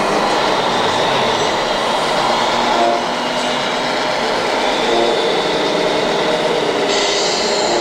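Steady mechanical running noise of radio-controlled model trucks on an indoor track, their motors and gearing humming with faint shifting engine-like tones; a brighter hiss joins near the end.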